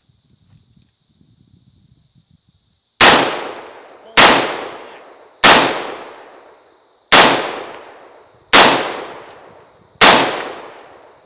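Six loud shots from an AR-style rifle fitted with a Strike Industries barrel extension, fired one at a time about a second to a second and a half apart, each dying away in echo. A steady high insect buzz runs underneath.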